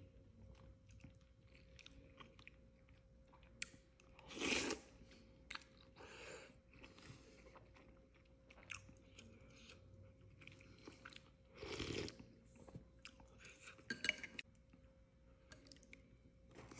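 A person eating khao piak sen, Lao chicken noodle soup: quiet chewing and mouth noises, with short louder bursts about four and twelve seconds in and a few sharp clicks soon after. A faint steady hum runs underneath.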